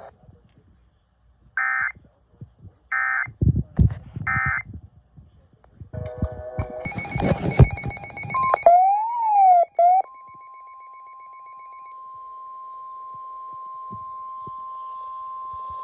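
Emergency Alert System signalling on NOAA Weather Radio: three short data bursts of the SAME header about a second and a half apart, a jumble of beeps and knocks, a warbling tone sweeping up and down, then the steady single-pitch warning alarm tone from about ten seconds in, announcing a new severe thunderstorm warning.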